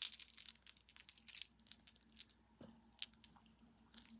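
Costume jewellery and beads being handled and sorted: faint scattered small clicks and handling noises, a quick cluster of them at the start.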